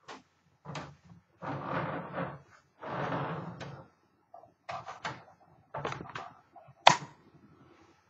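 Handling noises from a 1935 Royal O model portable typewriter as it is turned and its top cover is lifted. There are knocks and two longer scraping rubs in the first four seconds, then scattered clicks, with one sharp loud click just before the end.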